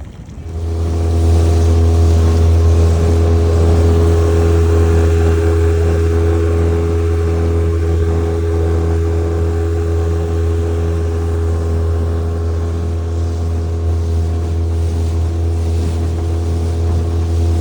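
A 9.9 hp Mercury four-stroke twin-cylinder outboard motor on a small aluminium boat comes up in revs about a second in, then runs steadily under way with a strong, even drone.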